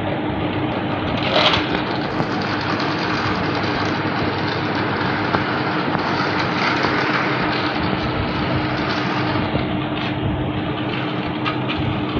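Battery toy car running along a flexible plastic race track: its small motor whirring steadily while its wheels rattle over the ridged track segments, with a few light clicks near the end.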